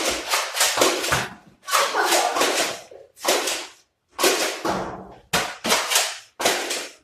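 Nerf blasters firing in repeated bursts, with dart clicks and smacks: about seven rough, clattering bursts, each under a second long, split by short silences.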